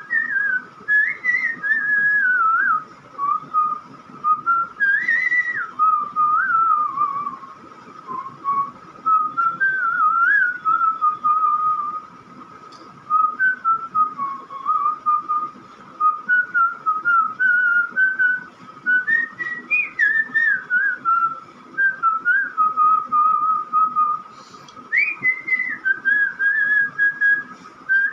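A person whistling a melody by mouth: one clear line of quick notes, rising and falling between phrases, with brief breaths between them, including a pause about twelve seconds in.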